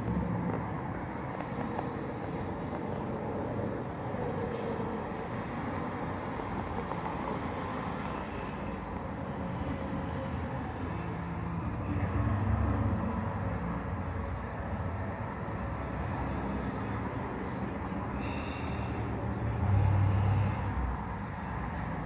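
Street traffic: a steady outdoor hum of passing cars, with two louder low engine rumbles from vehicles driving by, one about halfway through and a stronger one near the end as a vintage convertible comes past.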